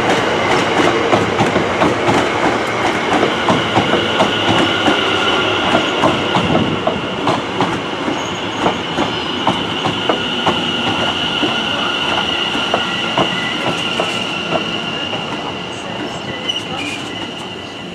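London Overground Class 710 electric multiple unit running past. Its wheels click rhythmically over the rail joints. A high steady wheel squeal joins about a third of the way through, and the noise fades slowly as the train draws away.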